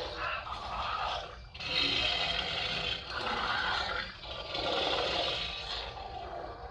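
Animated dragon sound effects: a run of about five rough, noisy roars, each lasting a second or so with short breaks between them.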